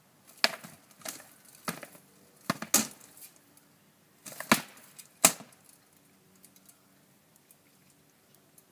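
Rattan swords striking shields and armour in a quick exchange of sharp wooden knocks, about seven blows in five seconds, some in close pairs, then only faint ticks.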